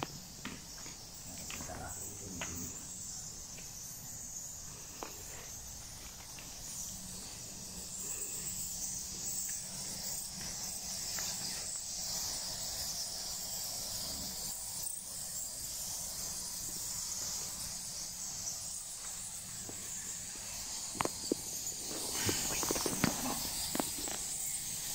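Steady high-pitched chirring of insects, with scattered footsteps and light knocks on rock and a few sharper knocks near the end.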